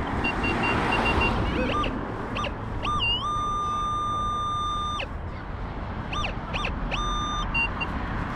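Minelab Vanquish metal detector beeping as its coil is swept over a buried metal target: a few short beeps, one held for about two seconds about three seconds in, then more short beeps.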